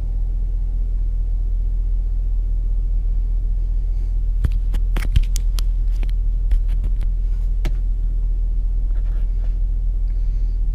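Steady low rumble of engine and road noise inside the cabin of a moving Ford pickup with a 5.4-litre Triton V8. A scattering of light clicks and knocks comes through in the middle.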